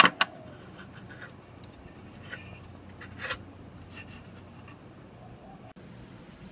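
Small plastic two-pin fan plug being pulled off its header on the DVR's circuit board: a sharp click right at the start and a second one just after, then a few fainter clicks and light rubbing as the plug is handled.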